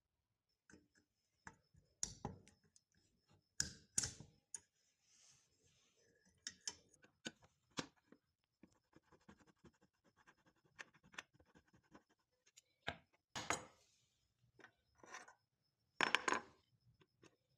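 Small metal gun parts and pliers clicking, scraping and clinking on a wooden workbench as an old air gun is taken apart, with pliers working a pin out of the action. Irregular short clicks and scrapes, with a few louder clatters about four seconds in and near the end.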